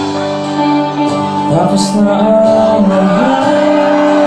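Live pop-rock band playing, with electric guitars, an acoustic-electric guitar and drums, and a voice singing over sustained notes.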